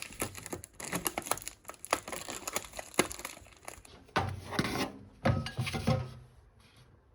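Close handling sounds: irregular crinkling and clicking, with a few heavier knocks in the last couple of seconds, as objects are picked up and moved.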